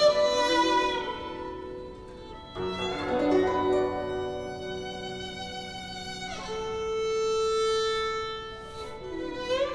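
Background music: a bowed string melody of long held notes joined by smooth slides in pitch.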